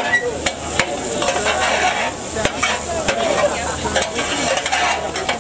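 Raw burger patties sizzling on a hot flat-top griddle: a steady hiss of frying fat with scattered sharp pops.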